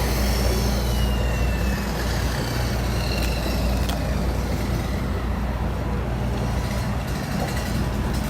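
Heavy vehicle engine and road rumble, running steadily, with a faint falling whine about a second in.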